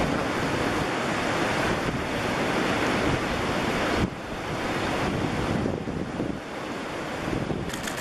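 Small sea waves washing over a rocky shoreline, mixed with wind buffeting the microphone: a steady rushing noise that drops suddenly about halfway through.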